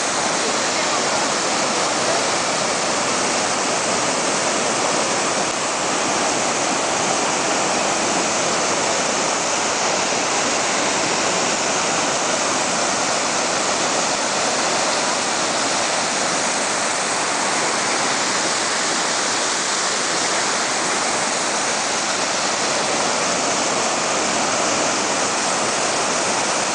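River in flood rushing through a washed-out road bridge, the water churning as white-water rapids over the broken asphalt and road bed. A loud, steady rush of water with no let-up.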